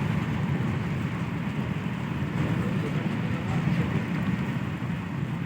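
Steady low rumble of a train in motion, even throughout with no distinct knocks or horn.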